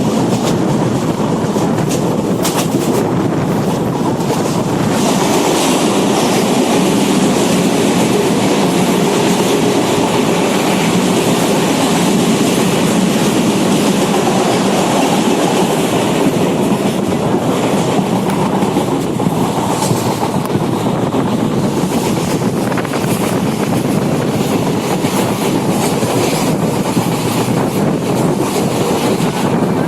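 Passenger train running at speed, a steady rumble of wheels on the rails with occasional sharp clicks from the track.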